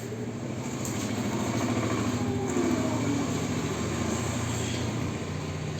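An engine running with a steady low hum, growing louder toward the middle and then easing off.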